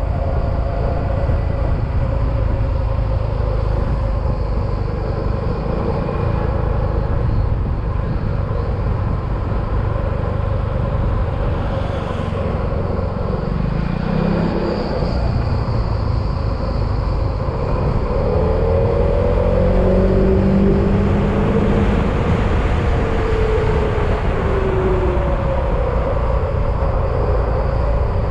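Yamaha XMAX scooter's single-cylinder engine running on the move, under a steady rush of wind and road noise. In the second half the engine note rises and falls a few times.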